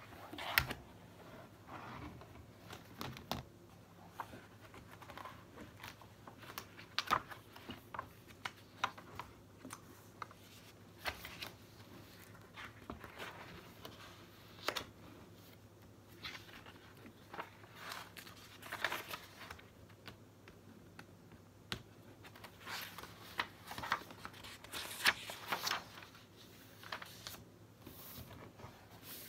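Paper and notebook pages rustling, with scattered small clicks and taps as desk items are handled, irregular throughout, over a faint steady low hum.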